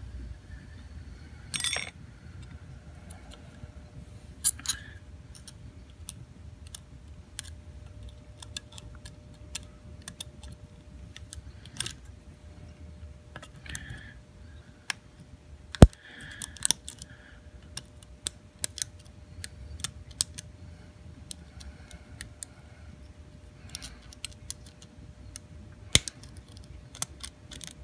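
Lock picks working the six sliders of a Supra-C key safe slider lock: scattered small metallic clicks and light scrapes at an irregular pace, with one sharper click about 16 seconds in.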